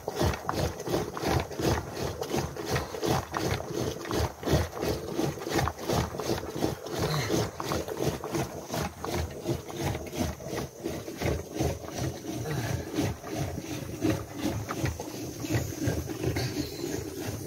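Wooden churning stick (madani) spun back and forth by a pulled cord in a pot of curd, churning butter for ghee: a steady rhythmic sloshing and knocking with each pull.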